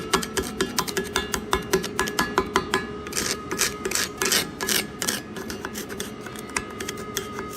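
A metal hand tool working on freshly welded galvanized steel: quick tapping with ringing metal, about five strikes a second, then from about three seconds in, rasping scraping strokes, two or three a second.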